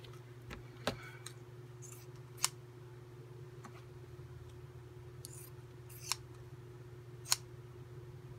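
Pinking shears cutting cotton fabric: a few separate sharp snips spread over several seconds, with brief rustling of the cloth between them.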